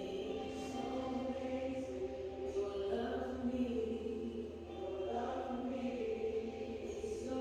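Slow vocal music: voices holding long notes in chords that shift every second or so, over a steady low hum.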